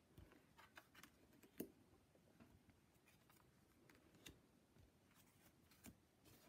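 Near silence with faint, scattered taps and slides of tarot cards being handled and laid one by one onto a pile on a wooden tabletop; the clearest clicks come about one and a half seconds in and near the end.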